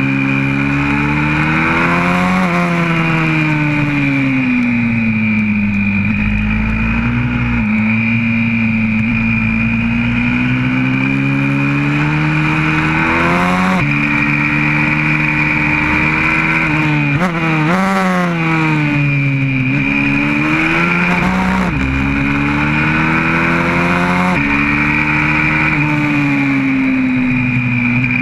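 YCF 125cc four-stroke pit bike engine under hard riding, heard from on the bike. Its pitch climbs under acceleration, drops abruptly at gear changes and falls away off the throttle into corners, several times over.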